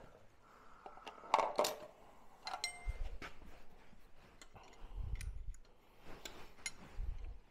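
Scattered clinks and taps of metal hand tools on a distributor hold-down clamp, with a couple of short metallic rings and a few dull low bumps.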